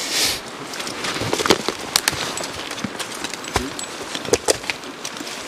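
Belgian draft horses in harness stepping and shifting about on dry fallen leaves: scattered crunching and sharp clicks, with a brief hiss at the very start.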